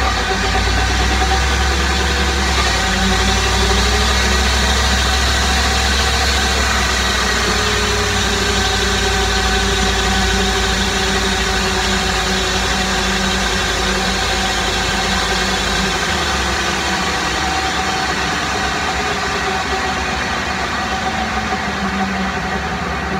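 2008 Dodge Ram 1500's drivetrain running in gear at road speed with the rear wheels off the ground: the driveshaft and rear differential turning, with the Hemi V8 running beneath, a steady noise carrying several held tones that drift slowly up and down in pitch. The owner takes it for a developing rear-differential noise that a fluid change has not cured.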